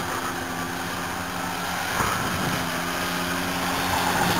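Side-by-side utility vehicle's engine running steadily as it drives through deep mud, with a single short knock about halfway through.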